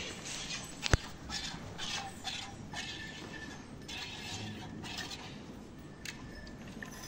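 A cow milked by hand: rhythmic squirts of milk hissing into a small metal can, two or three a second, with one sharp click about a second in.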